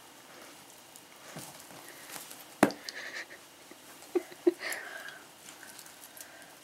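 Scattered soft knocks and rustles of a kitten scrambling around a fabric pop-up box and feather wand toy, with one sharp click about two and a half seconds in.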